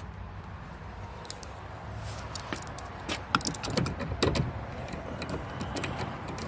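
Small clicks and clinks of handling the door-handle bolts, with their collared washers, and the plastic door handle, coming thickest and loudest around the middle, over a low steady background hum.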